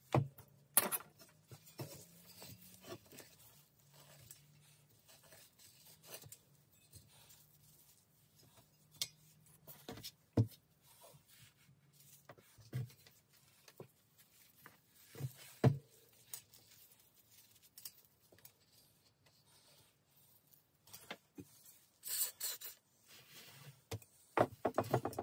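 Hand cleaning out the rusty, grime-packed shell of a 1981 Hercules Commuter's front wheel hub: rubbing and scraping with scattered knocks and clicks against the hub and spokes. Near the end come a few hissing squirts from a trigger spray bottle aimed at the hub.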